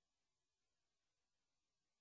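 Near silence: faint steady hiss, with no sound from the car.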